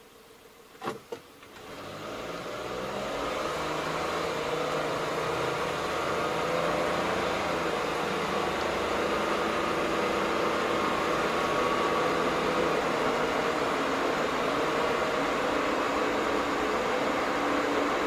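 Car driving, heard from inside the cabin. Two short clicks about a second in, then engine and road noise rise over the next couple of seconds and run steady.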